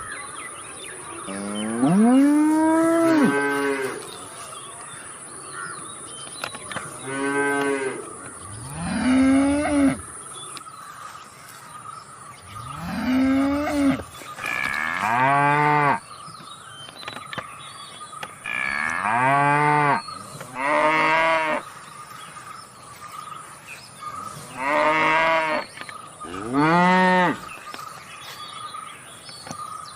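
Cattle mooing again and again: about nine separate moos, each one to two seconds long, some deeper and drawn out, others shorter and higher.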